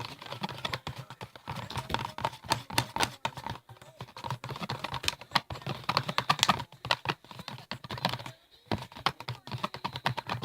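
A utensil stirring glue slime in a cup, clicking and scraping against the cup in many quick, irregular clicks, with a short pause about eight seconds in.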